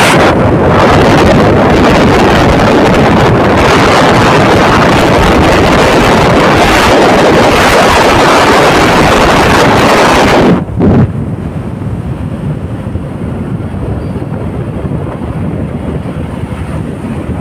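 Heavy wind buffeting the phone's microphone while riding along a highway at speed, a loud, even rushing roar. About ten and a half seconds in it drops sharply to a quieter, steadier rush of wind and road noise.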